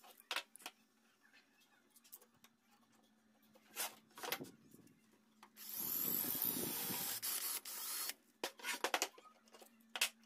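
Cordless drill with a twist bit boring a hole through plywood for about two and a half seconds, starting a little past the middle. Short clicks and knocks from the clamp and the jig being handled come before and after it.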